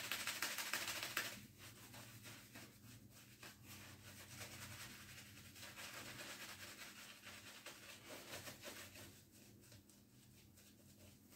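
Faint scraping of a straight razor drawn through lathered stubble in short strokes. A louder hissing noise in the first second or so stops suddenly.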